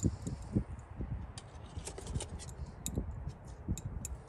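Wind buffeting the microphone as an uneven low rumble, with a scattering of light clicks and ticks throughout.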